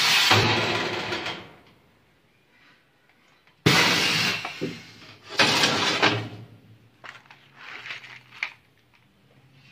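The steel sliding tray of a blister-packing machine being pushed and pulled along its rails. There are three loud scraping slides, each fading over about a second: one at the start and two about halfway through, followed by lighter metal clatter.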